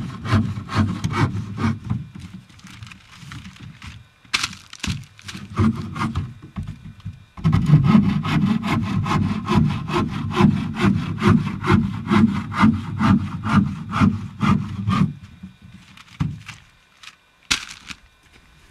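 Hand saw cutting through wood in quick, even back-and-forth strokes. The sawing weakens and pauses about five seconds in, resumes stronger about seven seconds in, and stops about fifteen seconds in, followed by a few sharp knocks.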